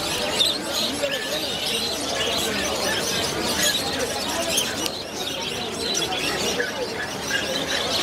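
Many caged lovebirds and other small parrots calling together: a dense, continuous chatter of short high chirps and squawks, over a low background murmur.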